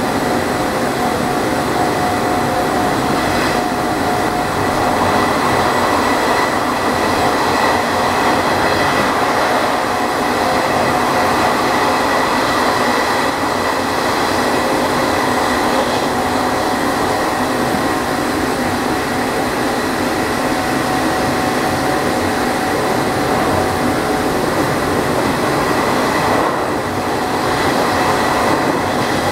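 Running sound of a Nishitetsu 5000 series resistor-controlled electric train, heard from inside the car at speed: a steady rumble of wheels on rail with a steady whine from the traction motors. The sound eases briefly near the end.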